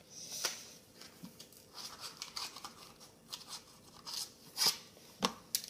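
Rustling and crinkling of packaging, with several sharp clicks and taps as plastic paint markers are handled.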